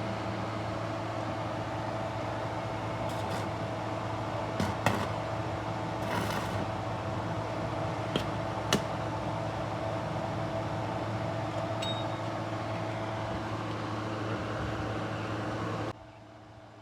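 Steady machine hum with a few sharp clicks and a short hiss, cutting off suddenly near the end.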